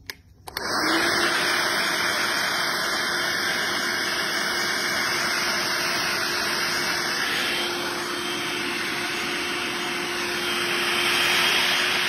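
Handheld hair dryer switched on under a second in and blowing steadily: a loud, even rush of air with a steady motor hum beneath it.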